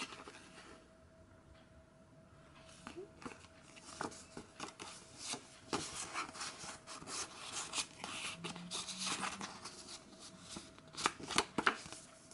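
Paper and card being handled: a photo card, envelope and paper inserts rustled and slid against one another in a string of light crackles and taps. It starts about three seconds in, after a quiet start, and is busiest near the end.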